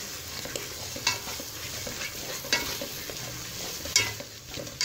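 A spatula stirring and scraping thick semolina halwa in a metal pot, with a scrape about every second and a half over a soft sizzle of the oil as it cooks on low heat. The halwa is thickening and being cooked until the ghee separates.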